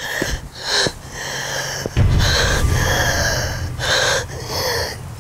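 A young woman gasping and sobbing for breath in distress, a string of breathy gasps with one long drawn-out breath in the middle, over a low rumble that begins about two seconds in.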